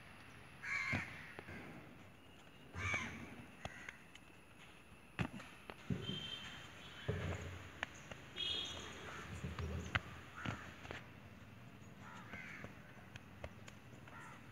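Crows cawing on and off, several harsh calls spread a second or two apart. A few sharp thuds come in between, from hands and feet landing as trainees vault over a line of bent backs.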